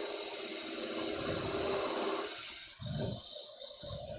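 Wood lathe turning, with a cutting tool shaving the spinning wood: a steady hiss over a faint hum, easing off about two seconds in, followed by a few low, dull thuds.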